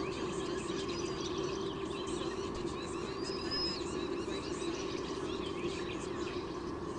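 Many short, high bird chirps and a few thin whistles overlapping, over a steady low hum.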